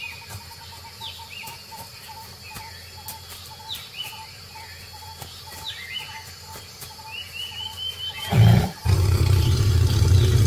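Birds call with repeated short, falling chirps over a steady run of short notes. About eight seconds in, a tiger breaks in with a loud, low growl that lasts a few seconds with a brief break: an aggressive warning as the tigers meet face to face.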